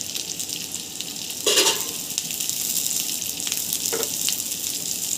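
Slivered almonds and cashews sizzling in hot ghee in a nonstick frying pan, stirred with a silicone spatula. There is one louder scrape of the spatula about a second and a half in, and a few light clicks near four seconds.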